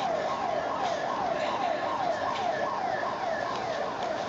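Siren sounding a fast, repeating downward sweep, about three falling tones a second, over a steady background hiss.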